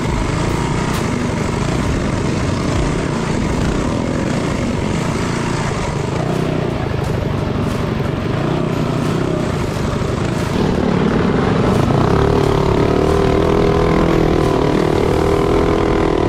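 Minibike's small single-cylinder engine running hard as the bike is ridden fast over a dirt trail, with wind and rattle noise. The engine gets louder about ten seconds in.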